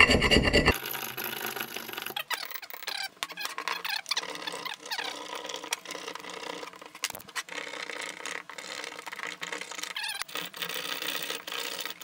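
A big knife blade scraping paper labels off glass wine bottles in repeated short strokes. Loud for the first second, then quieter.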